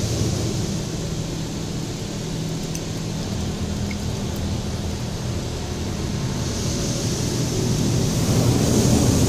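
Automatic car wash heard from inside the closed car: a steady low rumble of machinery and a hiss of water spray on the body and glass, muffled by the cabin. The spray hiss and overall level grow louder in the last few seconds.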